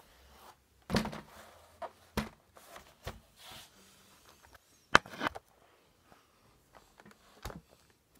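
Plastic laptop casing being turned over and handled, giving a handful of separate knocks and short rubs, the loudest about five seconds in.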